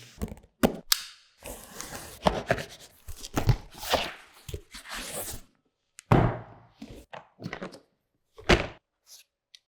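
Unboxing handling noise: a box and its packaging being opened and handled, with rustling, scraping and a run of knocks. Two heavier thunks stand out, about six seconds in and again about two and a half seconds later.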